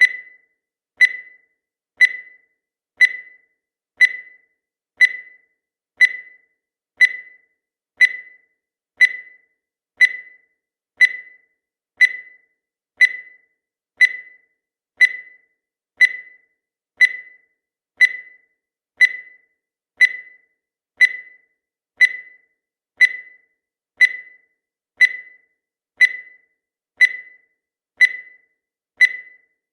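Countdown timer sound effect: a short, high-pitched beep that sounds once every second in a steady, even rhythm, each one dying away quickly.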